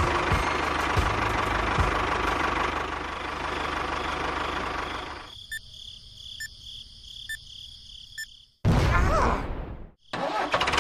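An engine running for about five seconds, then dropping to a quieter hum with a short beep about once a second, followed by a loud burst of noise that cuts off suddenly near the end.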